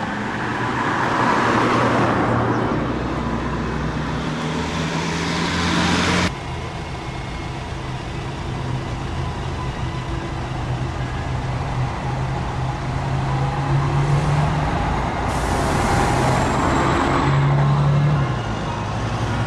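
Road traffic: vehicles passing close by, the noise swelling and fading twice, with a low engine hum. It drops suddenly about six seconds in.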